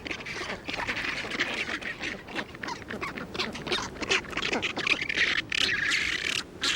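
A colony of rockhopper penguins giving many harsh, overlapping calls.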